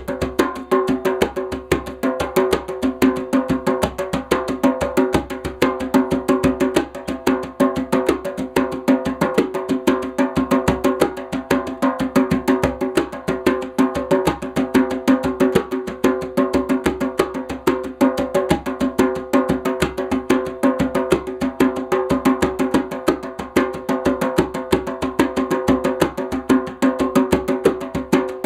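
African drum played in a fast, steady rhythm of dense strokes, with a ringing drumhead tone.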